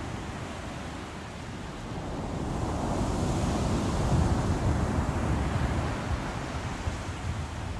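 Rough sea in a storm: waves surging and breaking with wind, swelling to a peak about four seconds in and then easing off.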